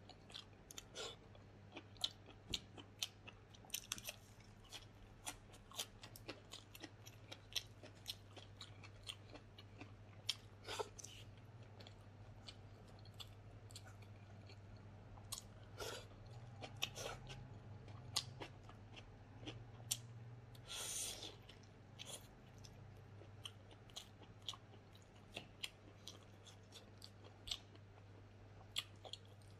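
A person chewing smoked pork leg and rice eaten by hand, close to the microphone, with many short wet smacks and clicks and a longer burst about two-thirds of the way through. A steady low hum runs underneath.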